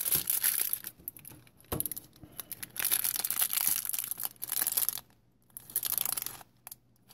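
Small clear plastic bag of LEGO pieces crinkling as it is handled, in several bursts with short pauses between.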